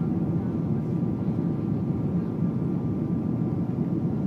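Steady cabin noise of a Boeing 777-200ER heard from a window seat over the wing: a deep, even rush of airflow and engines, with a faint steady whine above it, during the low-altitude descent.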